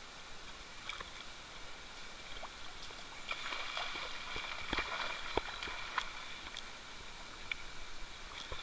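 Dogs wading and swimming in a shallow pond, water sloshing and splashing around them, busiest a few seconds in, with small scattered drips and clicks.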